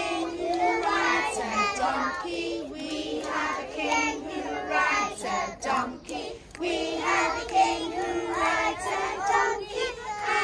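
A group of young children singing a song together, with held notes and short breaths between phrases.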